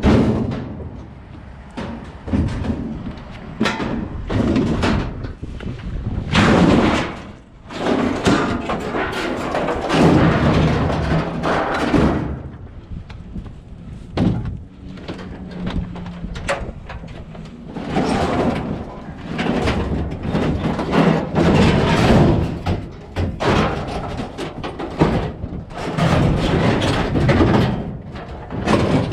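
Junk and scrap being handled and loaded: a run of irregular thumps, bangs and scraping, with some longer noisy stretches.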